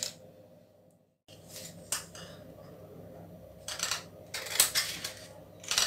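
Scissors cutting through folded paper along a curved pencil line: a handful of separate sharp snips, the loudest near the end, after about a second of near silence at the start.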